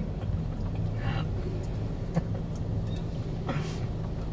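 A 2013 Chevy Cruze's engine running steadily at low revs, heard from inside the cabin as a low hum, with a few faint clicks and brief soft rustles.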